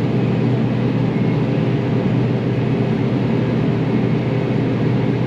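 Cotton picker running steadily under harvest load: an even engine and machinery drone with a constant hum, no change in pitch or level.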